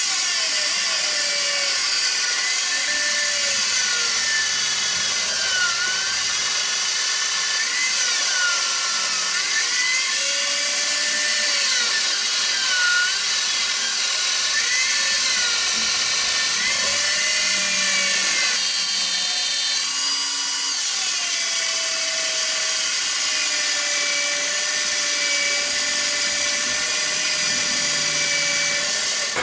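Electric drill running steadily, spinning a wooden knife handle held in its chuck, with wavering squeals that rise and fall as a hand-held pad and a wire are pressed against the turning wood.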